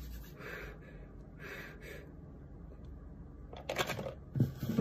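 Faint handling noises from a cardboard Pringles can wrapped tightly in rubber bands as its lid is worked at. Soft rustles come about half a second and a second and a half in, then a few sharper clicks near the end.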